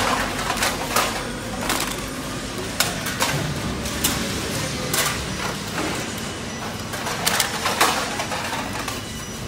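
Aluminum cans clattering and knocking irregularly against a steel hopper and a recycling conveyor belt, over the steady hum of the conveyor machinery.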